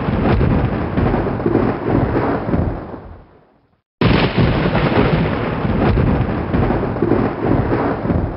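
A loud, dense noise, strongest in the low end, that is already running and fades out over about three seconds, then cuts in again suddenly at full level about four seconds in and fades the same way: a looped outro sound over the end card.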